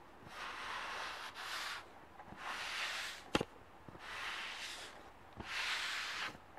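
Sponge wiping thick stove polish back and forth across the cast-iron top of a Morso Squirrel stove: a run of hissy rubbing strokes, about five, with one sharp click about halfway through.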